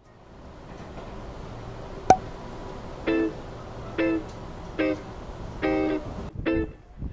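Instrumental background music of strummed guitar-like chords, about one a second, entering about three seconds in over a steady hiss of room noise. A single sharp click about two seconds in.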